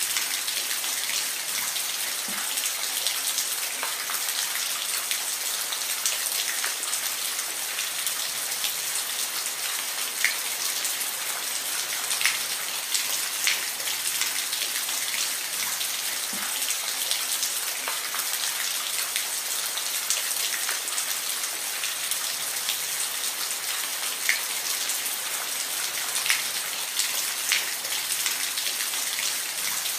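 Steady rain falling in an even hiss, with single drops ticking sharply here and there.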